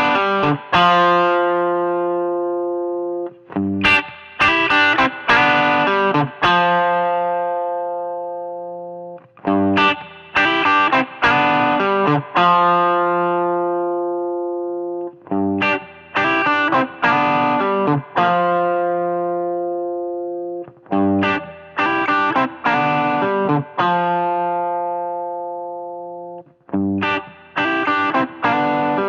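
Electric guitar played through the Kardian C10H12N2O Serotonin, a Tube Screamer-style overdrive pedal, with a warm, mildly driven tone. A few quick chords about every five or six seconds, each phrase ending on a held chord that rings out and slowly fades.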